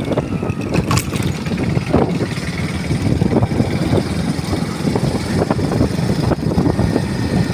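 Motorcycle engine running as the bike rides along, a steady low rumble.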